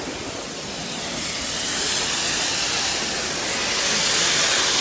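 A steady, loud hiss with no clear tone. It grows louder after about a second and then holds.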